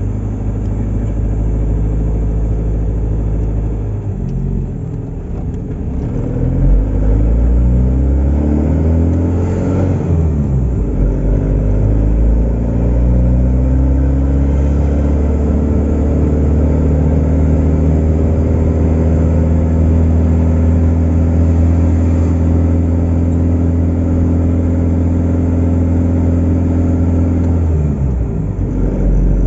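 Boat engine running loud and low, its pitch sliding up and down for several seconds as the throttle changes, then holding steady at a constant speed before shifting again near the end.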